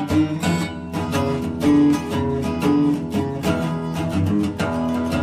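Background instrumental music with a fast, steady run of notes.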